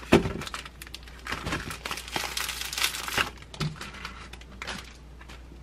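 Thin plastic bread bag crinkling as it is handled open and a slice of bread is taken out. The crinkling is dense for about three seconds, then thins to a few light rustles.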